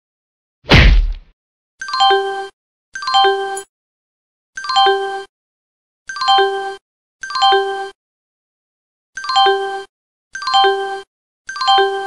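One low thump just under a second in, then the same short bell-like chime sounding eight times at uneven gaps of about one to two seconds, each note identical in pitch: cartoon sound effects.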